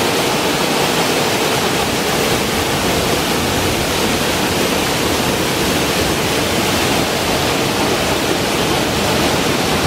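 Waterfall pouring down a rock face into a plunge pool: a steady, unbroken rush of falling water.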